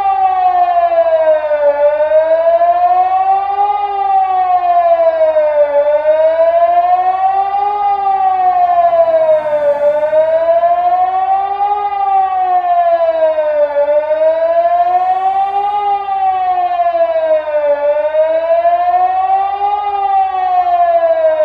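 Ergatec civil-defence siren sounding the Swiss general alarm at full power: a loud wailing tone that rises for about two seconds and falls for about two seconds, over and over.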